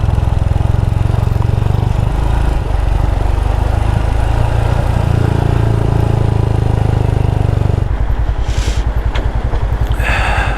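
Royal Enfield Himalayan's single-cylinder engine running under way, its note stepping between speeds; about eight seconds in it drops to slow, even firing beats as the throttle eases off. Two short bursts of noise come near the end.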